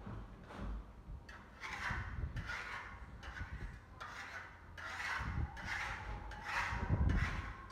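Steel plastering trowel scraping over Venetian plaster on a wall in quick, repeated short strokes, about two a second, with a few dull low thumps among them.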